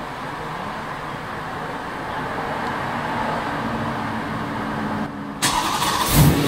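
BMW E93 M3's 4.0-litre V8 being started by remote from the smart key: a steady hum, then about five seconds in the engine cranks and fires with a sudden loud burst, running on as a low rumble near the end.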